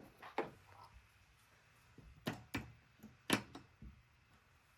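A few sharp clicks and knocks of PC parts being handled and fitted, the loudest about a third of the way through and another a little later.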